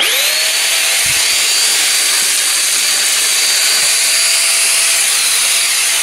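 Euroflex Monster handheld vacuum switched on, its motor spinning up in a split second to a steady high whine over a loud rush of air, running without its filter.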